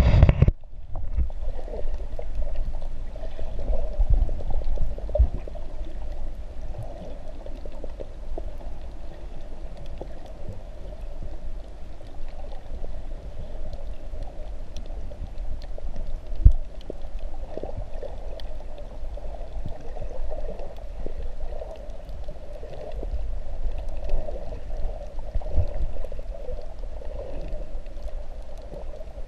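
Muffled underwater sound picked up by a submerged camera while snorkeling: a steady low rumble and hum of moving water against the camera housing, with scattered knocks and one sharp knock about sixteen seconds in. A brief loud burst opens it and cuts off within the first second.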